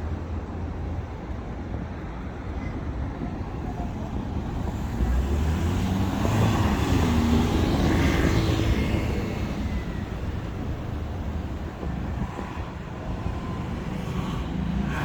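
Street traffic noise in which a motor vehicle passes, swelling to its loudest about halfway through, with a pitch that bends as it goes by, then fading.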